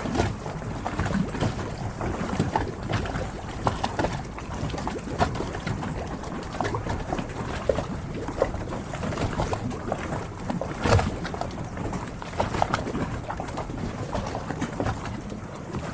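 Harbour water lapping and slapping against the hulls of moored boats, a continuous watery wash broken by irregular knocks and splashes, with one sharper knock about eleven seconds in.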